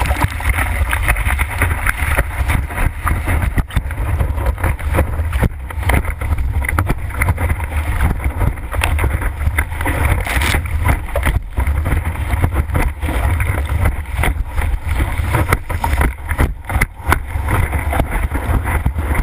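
Wind and rushing surf buffeting a GoPro's microphone while a board rides a large, choppy wave: a continuous heavy rumble with frequent sharp splashes and knocks.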